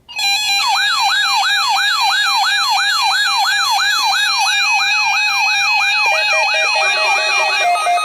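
Electronic siren-like alert tone: a pitch sweeping up and down about two and a half times a second over a steady lower tone, with extra steady tones joining near the end.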